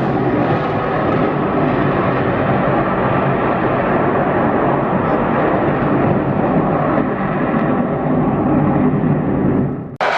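Aircraft engine noise, loud and steady, that cuts off abruptly near the end.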